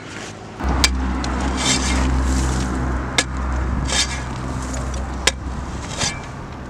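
A shovel digging into dry, pebbly dirt: repeated scraping strokes of the blade with three sharp clicks among them, over a steady low hum.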